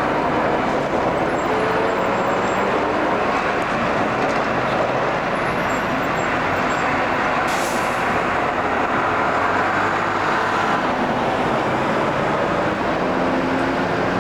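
A large vehicle running steadily and loudly, with a short hiss just past halfway.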